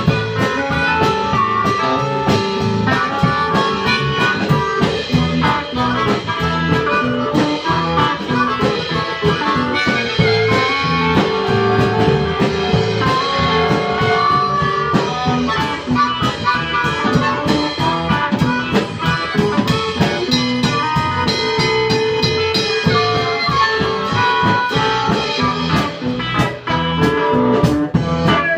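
Live blues band: a harmonica cupped against the vocal microphone plays long held and bending notes over electric guitar and a drum kit.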